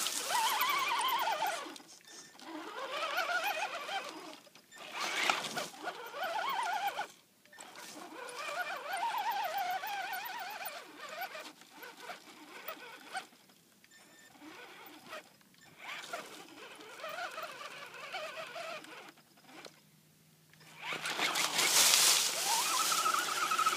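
Axial Wraith RC truck's electric motor and gears whining in short bursts, the pitch rising and falling as the throttle is worked, with gritty louder bursts between; the owner finds the motor weak and slow.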